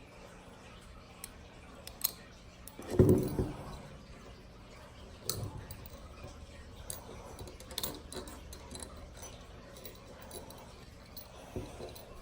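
Metal handcuffs clicking and rattling in scattered light clicks as they are worked at, with one louder handling noise about three seconds in.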